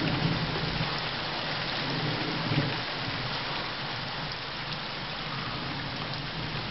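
Heavy rain pouring down steadily in a summer thunderstorm.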